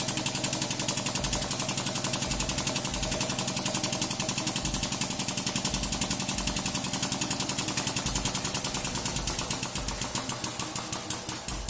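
Hydraulic press pump running under load as the press crushes a bar of microwaved Ivory soap, with a rapid, even pulsing that slows toward the end.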